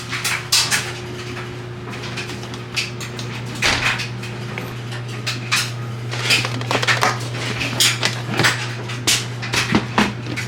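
Household cleaning clatter: dishes, cutlery and cupboard doors clink and knock irregularly over a steady low hum.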